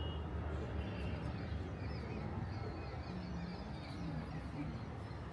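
Outdoor ambience: a steady low rumble with faint bird chirps above it and a few low wavering calls in the second half.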